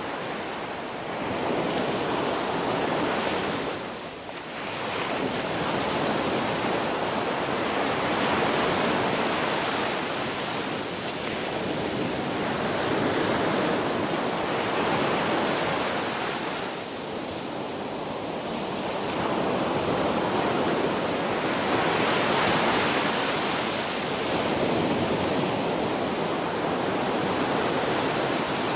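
Ocean waves breaking and washing up a beach, a steady surf that swells and eases every few seconds, with a little wind.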